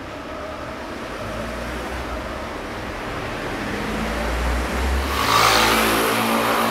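Street traffic: a motor vehicle's rumble builds up and it passes close and loud with its engine revving about five seconds in.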